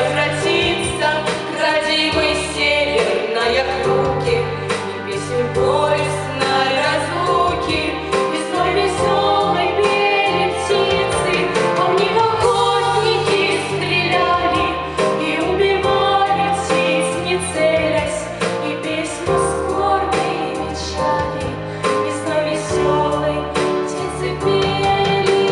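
Female voices singing a folk-style song together over instrumental backing, with steady bass notes and a regular beat.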